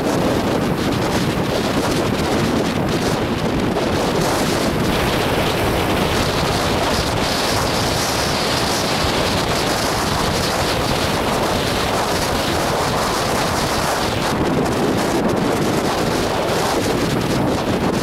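Strong wind buffeting the microphone in a steady rush, over the wash of breaking surf.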